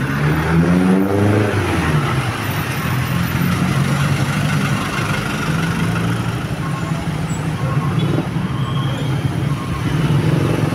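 A large road vehicle's engine revs up over the first second or two, then runs on steadily.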